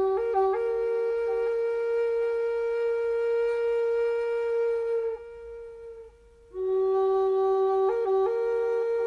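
Solo flute playing slow, long-held notes, each phrase opening with quick grace-note flourishes. The first phrase fades about five seconds in, and after a short breath a second phrase begins.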